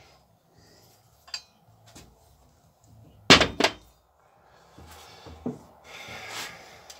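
Metal engine parts being handled while the crankshaft-position-sensor reluctor ring is fitted to the crankshaft: a faint click about a second in, two sharp clacks about halfway through, then rubbing and shuffling near the end.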